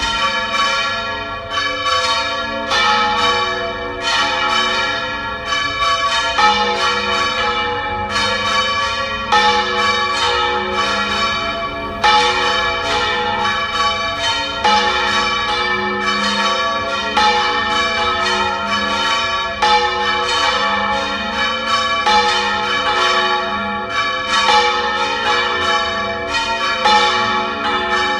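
Three church bells swung full circle in Valencian volteig style, clappers striking in an uneven, overlapping sequence, one to three strokes a second. Each stroke leaves a long metallic ring under the next. The bells are of 182 kg, 319 kg and 512 kg, and the 512 kg bell sounds with a new clapper.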